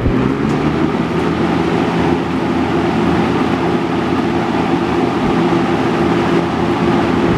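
Dayton (Lakewood-built, 2nd gen) metal box fan running steadily: a motor hum with a rush of air from the blades.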